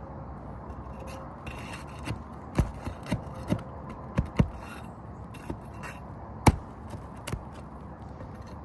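A hand tool prying roofing nails out from under an asphalt shingle: a series of sharp, irregular knocks and scrapes, with the loudest strike a little past the middle.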